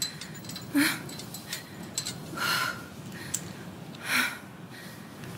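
A woman breathing heavily into a phone, three loud, labored breaths about a second and a half apart.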